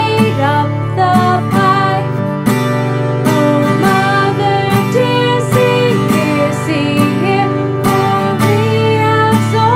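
A woman singing a nursery rhyme, accompanied by a strummed acoustic guitar. The sung lines run 'and they ate up the pie… oh mother dear, for we have soiled'.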